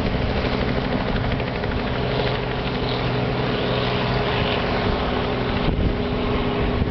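Steady engine drone of an aircraft flying overhead, its pitch holding level throughout, over a rushing hiss of wind on the microphone.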